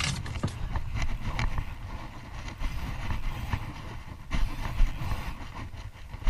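Steady low rumble of wind and boat noise at sea on a small camera, with faint scattered clicks and a couple of louder knocks about four and a half seconds in.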